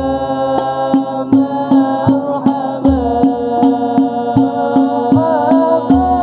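Hadrah Al-Banjari group singing sholawat: young male voices in unison on a long, held melodic line with ornamented turns. Under them runs a steady beat of terbang frame drums, about two to three strokes a second, with a deep bass drum stroke about every three seconds.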